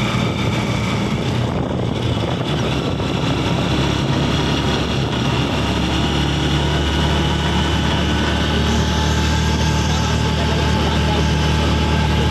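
A vehicle's engine running steadily, heard from inside the cabin on a winding uphill road: a constant low hum with road noise and no sudden changes.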